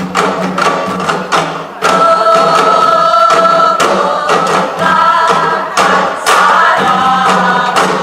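Korean popular song with a sung melody playing, with many sharp drum strikes played along to its beat by a group.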